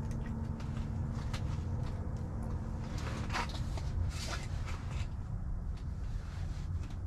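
Rustling and handling noises as an angler in a cloth ice-fishing shelter unhooks a bluegill and shifts on his seat, over a steady low rumble. The two loudest rustles come about three and four seconds in.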